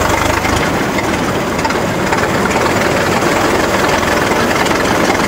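Engine of a 1926 Ford Model T speedster idling steadily while the car waits in traffic.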